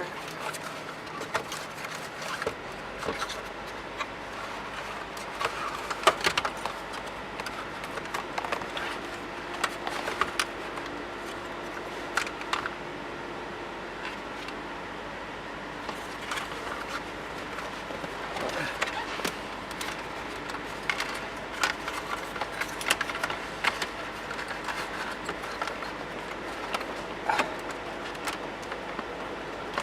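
Hands working a wire through a car's interior trim: scattered clicks, rustles and plastic-and-metal scrapes. A faint steady low hum comes in about two and a half seconds in.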